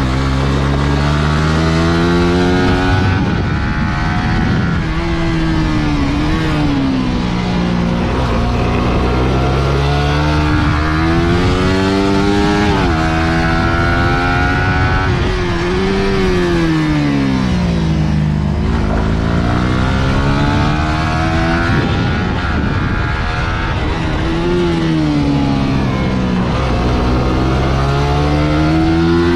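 Suzuki GSX-R150's single-cylinder engine being ridden hard on a race lap, its pitch climbing as it revs out and dropping back, over and over, with a steady low rumble underneath.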